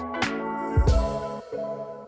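Intro music: sustained chords with a drum beat. A last deep drum hit comes just under a second in, then the music rings out and fades.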